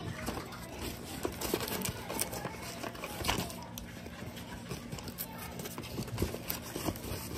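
Scissors snipping through the packing tape and corrugated cardboard of a parcel, then the cardboard being torn and crinkled open by hand: irregular sharp snips, crackles and rustles.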